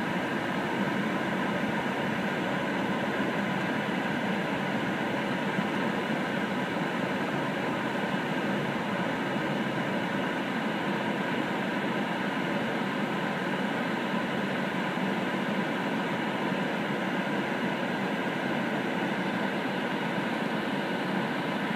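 Steady rushing noise inside a car's cabin as it drives: road, tyre and engine noise, even and unchanging.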